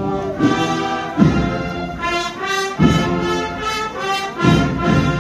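Andalusian processional band (agrupación musical) of brass and drums playing a march: sustained brass chords punctuated by heavy low beats about every one and a half seconds.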